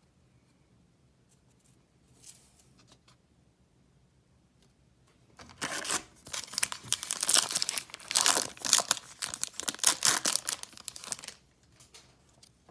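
A baseball card pack wrapper being torn open and crinkled, a dense crackling that starts about halfway through and lasts roughly six seconds, after a few faint handling clicks.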